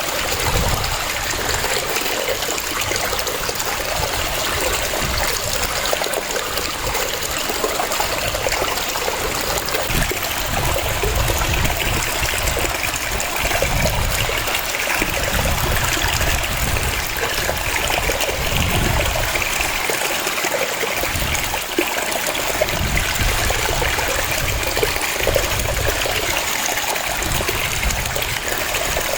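Waterfall: water cascading and splashing in a steady rush, with irregular low surges.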